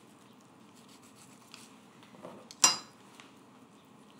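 A single sharp clink of kitchenware with a brief metallic ring about two and a half seconds in, with a softer knock just before it.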